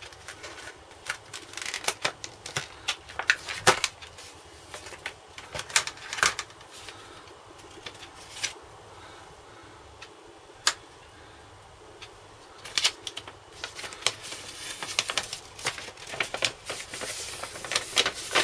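Stiff plastic blister packaging crackling and clicking as it is handled and opened, then paper rustling as a folded instruction sheet is taken out and unfolded. The clicks come irregularly, in bursts with quieter gaps between.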